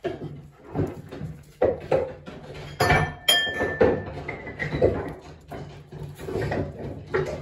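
Dishes and cutlery clinking and knocking as they are handled and washed up, in irregular strokes, with one clink about three seconds in that rings on briefly.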